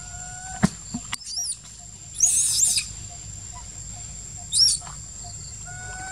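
Short, high-pitched squeaky animal calls, each rising and falling in pitch: one just over a second in, the longest and loudest about two seconds in, and a brief one near the five-second mark. A sharp click comes shortly before the first call.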